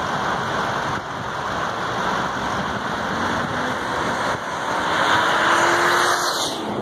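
Road traffic: cars and a van passing at an intersection, a steady rush of engines and tyres that swells as a vehicle passes close about five seconds in.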